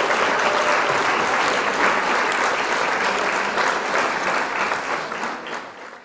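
Applause: many hands clapping in a dense patter, fading out near the end.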